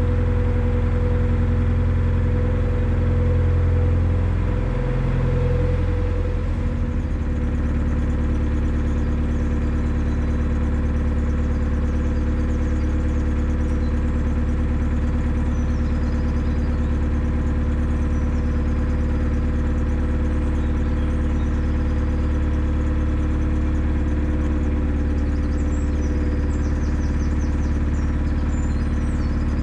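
Narrowboat's diesel engine running steadily under way, its note dropping slightly about six seconds in and then holding even.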